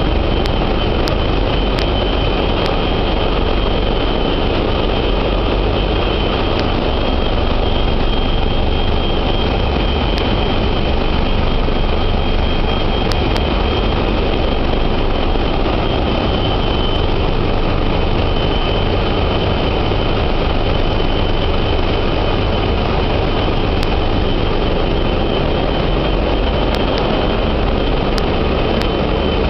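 Ship's engine-room machinery, the diesel engines and their auxiliaries, running: a very loud, steady drone with a thin, high, even whine above it.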